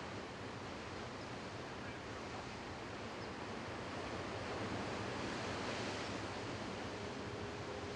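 Steady rushing outdoor noise that swells a little around the middle.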